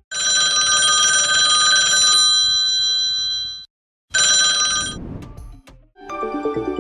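A phone ringtone in the style of a ringing telephone bell: a long ring, a brief pause, then a second ring that fades away.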